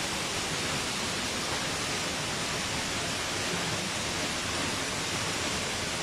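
A 54-metre free-falling waterfall: the steady, even rush of water falling and splashing, heard from behind the fall.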